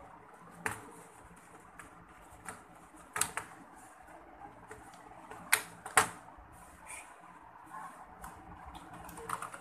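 A few scattered clicks and taps of keys on an external computer keyboard, the loudest two close together about halfway through, over a steady low hum.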